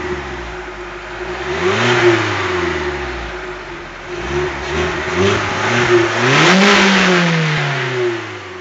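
VW Polo 9N's 1.4 petrol four-cylinder engine heard at the exhaust tailpipe, likely through its stock silencer, being revved from idle. There is one rev about two seconds in, a few short blips around the middle and a longer, louder rev near the end, with the note falling back between them.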